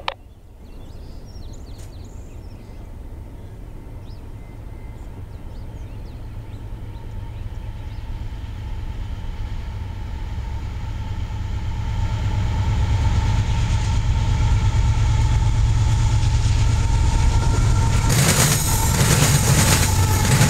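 Norfolk Southern freight train led by an AC44C6M diesel-electric locomotive approaching, its engines' rumble and a steady tone growing gradually louder. About 18 seconds in the locomotives pass close by with a sudden loud rush of engine and wheel noise over the rails.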